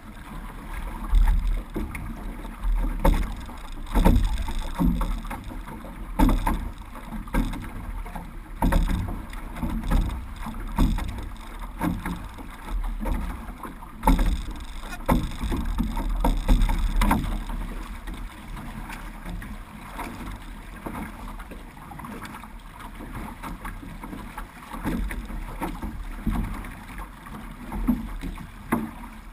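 Paddles of a six-person outrigger canoe (OC6) splashing in a steady rhythm, about one stroke a second, over water rushing past the hull and a low rumble. The strokes are loudest in the first half and ease after about 18 seconds.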